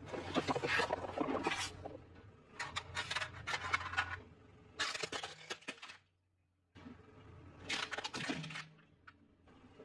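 Plastic toys cracking and crunching as a car tyre rolls over and crushes them, in four separate bursts of crackling with a sudden silence about six seconds in.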